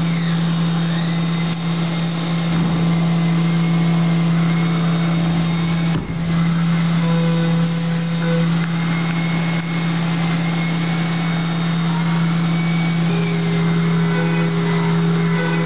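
Haas VF-2 CNC mill cutting metal with a Destiny Tool Viper 0.5-inch three-flute endmill on a peel-mill high-speed toolpath: a steady loud hum with a high singing tone that wavers slightly in pitch, which the uploader puts down to the set-screw toolholder. The cut briefly dips about six seconds in.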